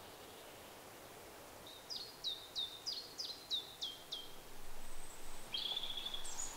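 A bird calling over faint forest ambience: a run of about eight short notes, each sliding down in pitch, about three a second, followed near the end by a steadier, trilling call.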